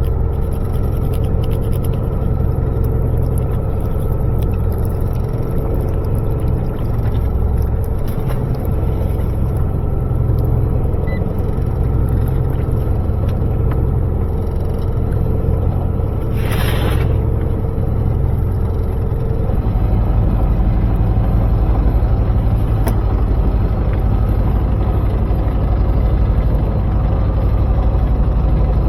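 Fishing boat's engine running with a steady low drone; its note shifts about twenty seconds in. A brief hiss comes just past the middle.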